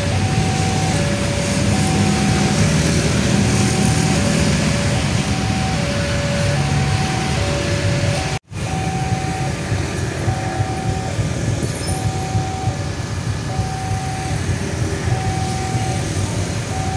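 Railway level crossing alarm sounding a steady alternating two-tone chime, a lower and a higher tone each under a second, over steady road traffic noise: the warning of an approaching train. All sound cuts out for a moment about eight seconds in.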